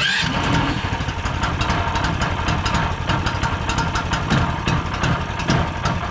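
Predator 420cc single-cylinder four-stroke engine on a long-tail mud motor running steadily at idle, just after catching on its first start.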